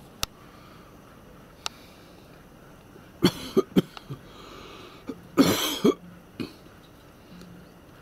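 A man coughing: three quick coughs about three seconds in, then one longer cough about two seconds later.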